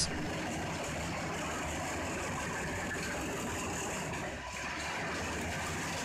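Steady mechanical drone of a mobile wood chip screening plant running, its conveyors discharging chips onto piles.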